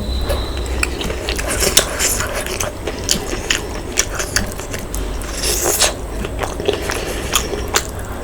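Close-miked eating of mutton curry and rice: steady chewing with many short wet smacks and clicks of the mouth.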